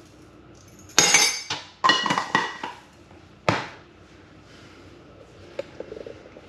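Clinking and clattering of hard objects, with short metallic ringing: a loud clatter about a second in, more around two seconds, and a single sharp knock midway, then a few faint clicks near the end.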